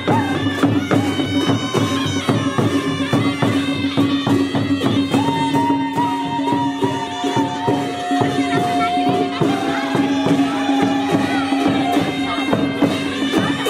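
Live Nepali panche baja band: sahanai shawms play a wavering reedy melody over a steady held note, with hand drums and cymbals beating fast underneath.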